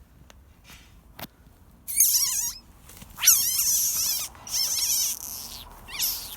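A frog giving high-pitched squeaky calls, four in a row starting about two seconds in, each a rapid warbling wobble in pitch.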